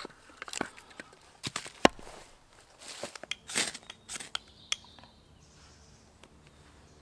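A hatchet splitting kindling on a wooden chopping block: several sharp knocks of steel into wood and falling sticks, the heaviest strike just before the 2-second mark. After that, a knife shaves and scrapes dry kindling for fire-lighting, with a few rasping strokes and small clicks that die away in the last couple of seconds.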